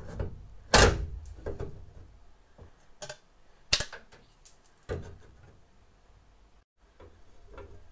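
Tin snips and a thin sheet-metal plate being handled against a truck door's inner panel: a handful of sharp, irregularly spaced clicks and knocks, the loudest about a second in, then quiet.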